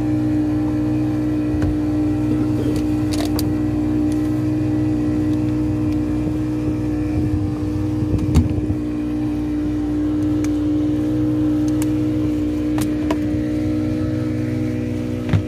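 Fishing boat's engine running steadily at a constant speed, an even drone with a fixed hum. A few short knocks on deck sound over it, the loudest about eight seconds in.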